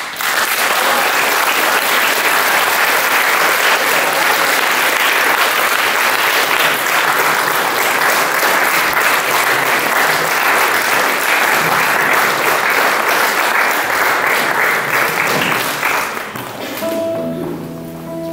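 Audience applauding steadily for about sixteen seconds, then dying away. Near the end a few notes ring out on a nylon-string classical guitar.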